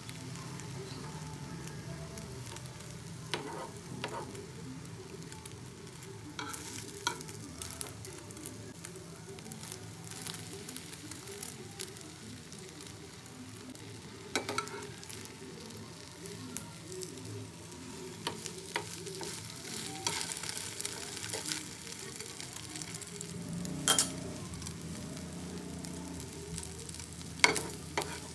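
Egg omelette sizzling gently in a non-stick frying pan, a steady hiss with scattered crackles and pops. Near the end come a couple of sharp knocks as a slotted spatula is worked under the omelette against the pan.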